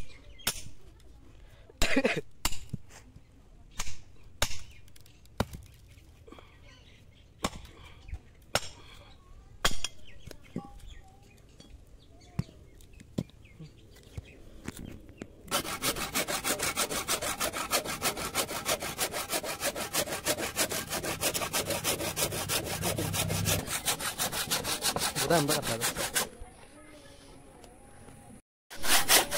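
A hatchet chopping into a bamboo root clump in separate hard knocks, splitting the wood. About halfway through, a handsaw cuts through the bamboo root in fast, even strokes for about ten seconds, stops, and starts again right at the end.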